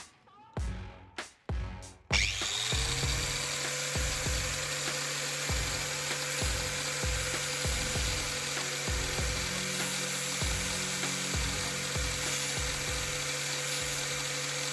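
A power tool's electric motor starts about two seconds in, spins up to a steady whine and keeps running evenly, over background music.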